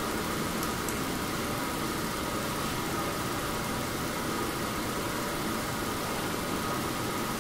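Steady room tone in a quiet church: an even hiss with a faint, unchanging hum, and no voices.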